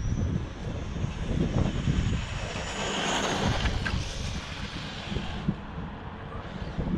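Electric motor of a WLtoys 124019 RC car whining on a full-throttle speed run. The whine rises in pitch for the first three seconds or so, then fades as the car goes away. Wind buffets the microphone throughout.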